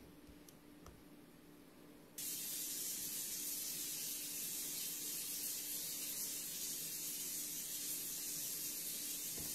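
A few faint clicks over near silence, then a steady high-pitched hiss that starts abruptly about two seconds in and holds at an even level.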